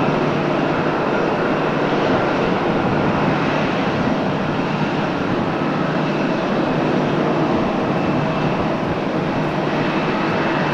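Jet engine noise from a Boeing 777F freighter's GE90 turbofans: a steady rush with a faint high whine running through it.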